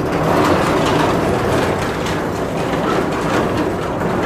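Heavy truck's protective shutter rattling steadily as it moves, a dense metallic clatter of many small clicks.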